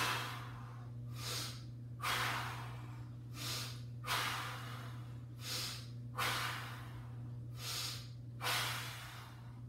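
A man breathing hard in time with dumbbell bench press reps: a long, forceful breath about every two seconds, with a shorter breath between each.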